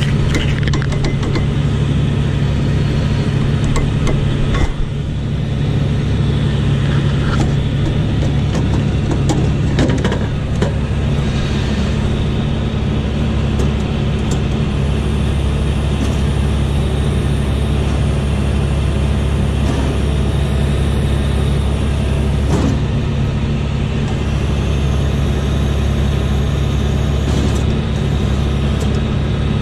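Claas Dominator Mega 208 combine harvester running steadily close up, with a deep, even engine hum and the clatter of its header machinery. A few short knocks come through, one about five seconds in and another about ten seconds in.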